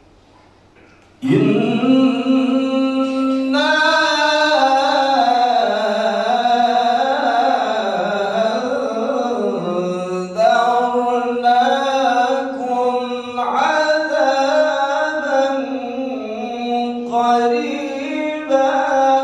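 A male qari recites the Quran in melodic tilawah style, amplified through a handheld microphone. The voice comes in about a second in and carries long, ornamented held phrases that bend up and down in pitch, with brief breaths between them.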